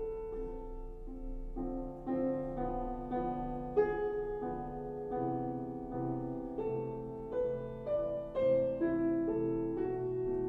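Solo piano music, a slow sequence of held notes and chords, reproduced through a NAD 3020 integrated amplifier and its speakers as a sound test.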